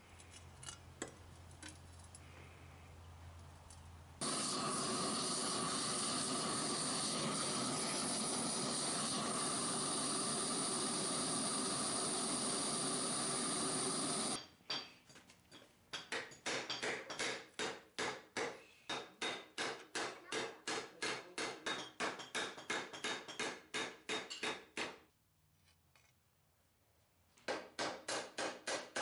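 A gas torch hisses steadily for about ten seconds, heating lawnmower-blade steel in a firebrick forge. Then a hand hammer forges the red-hot steel on a steel block anvil with sharp, even blows, about three a second, pausing briefly near the end before starting again.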